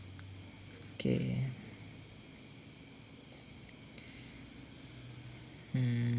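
A steady, high-pitched insect trill, such as crickets, running under the room sound; a man says a short word about a second in and starts talking again near the end.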